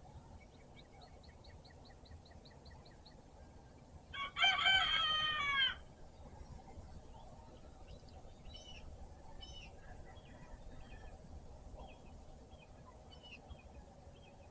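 A rooster crows once, about four seconds in, a loud call of under two seconds that falls away at the end. Small birds sing around it: a rapid, even trill before the crow and scattered short chirps after it.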